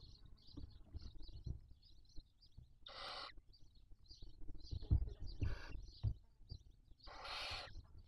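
Barn owl chicks begging for food: three long, rasping hisses about two seconds apart, over a steady run of short high chirps, with soft knocks from scuffling on the nest floor.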